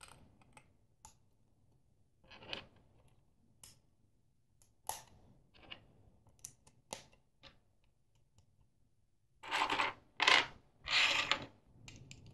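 LEGO plastic bricks clicking as they are handled and pressed together, a scattering of light clicks, then a few louder rattling bursts about ten seconds in as pieces are handled.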